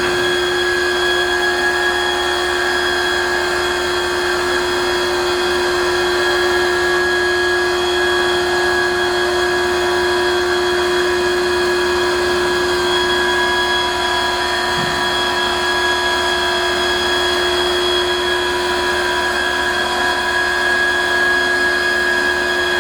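Hydrolec self-contained hydraulic trash compactor's electric pump motor and hydraulic pump running steadily under power, a constant whine with a hum beneath it, driving the ram through part of a compaction cycle.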